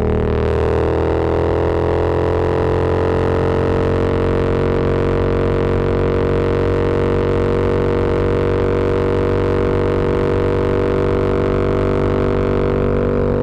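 Yamaha MT-07's parallel-twin engine and exhaust under way. The note rises in pitch over the first couple of seconds as it accelerates, then holds a steady drone.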